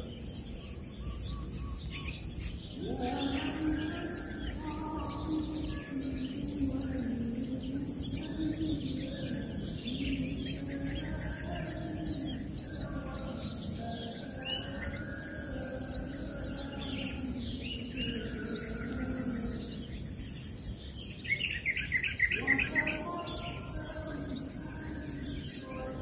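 Wild birds chirping and calling over a steady high drone of insects. About 21 seconds in, a quick run of about eight sharp notes is the loudest sound.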